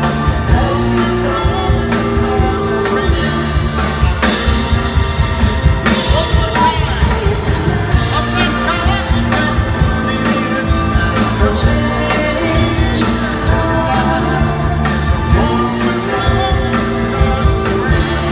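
Live band performing a song, with a man singing lead over stage keyboard and band accompaniment and a steady beat.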